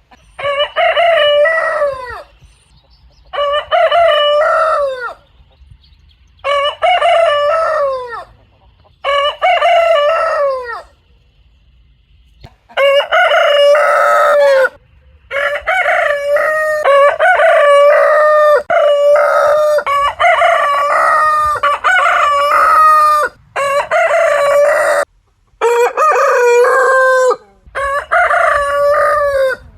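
Rooster crowing over and over: about a dozen loud cock-a-doodle-doo crows, each roughly two seconds long, coming close together in the second half.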